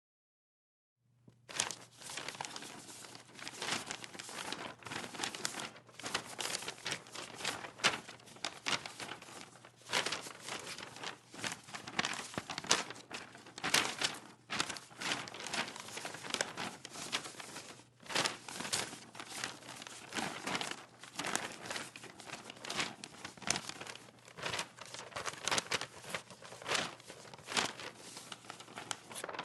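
Several sheets of paper handled and shaken, starting about a second in: a continuous rustling, full of sharp crackles and louder flaps.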